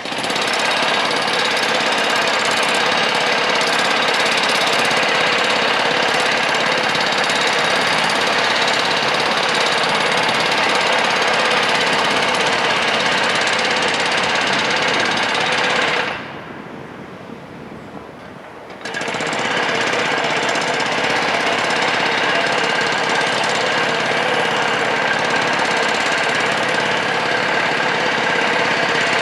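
Jackhammer hammering continuously with a fast, dense rattle. It stops for about three seconds a little past the middle, then starts again.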